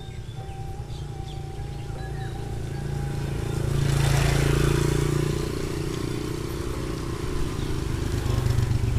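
Small motorcycle engine running steadily while riding along a paved road, with a louder swell of broad noise about four to five seconds in. Near the end another motor scooter passes close by and the engine sound grows louder.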